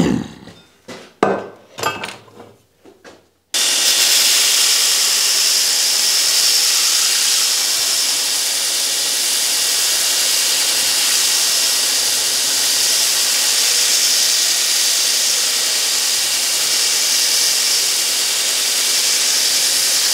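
A few knocks and footsteps. Then, from about three and a half seconds in, a homemade 2x72 belt grinder grinds a high-carbon steel draw knife blade, making a steady, harsh, hissing rasp of the abrasive belt on steel.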